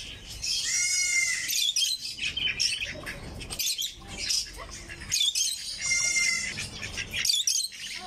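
Many caged birds chirping and squawking together, with dense short high chirps throughout. A louder, drawn-out harsh call sounds about a second in and again about six seconds in.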